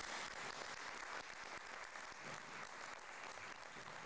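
Hand-clapping applause from a small audience: a steady patter of many claps.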